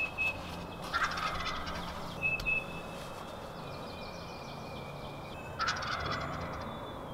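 Wild turkey tom gobbling twice: one gobble about a second in, another near six seconds.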